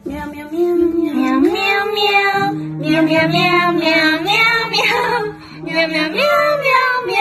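A high voice singing a melody over background music with a steady low accompanying tone.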